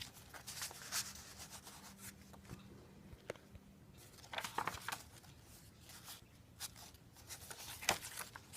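Paper rustling and rubbing as the tags and pages of a handmade paper journal are handled and unfolded, in short irregular scrapes, the loudest about halfway through and near the end.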